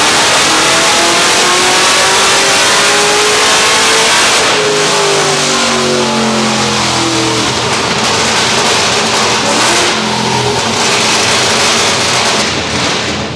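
Modified V8 of an HSV Clubsport wagon making over 600 horsepower at the wheels, revving hard. The pitch climbs for about four seconds, falls away as the revs drop, and the engine keeps running loudly until a sudden drop near the end.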